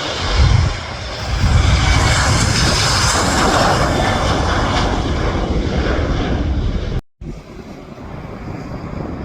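Fixed-wing aircraft engines running loud and steady at close range, with heavy wind rumble on the microphone. About seven seconds in the sound cuts off abruptly and gives way to quieter wind noise.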